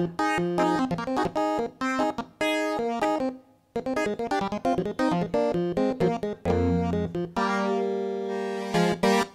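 Studiologic Sledge 2.0 digital synthesizer being played: a fast passage of short notes that breaks off briefly about three seconds in, then resumes. Near the end come a low note and a sustained chord, followed by more short notes.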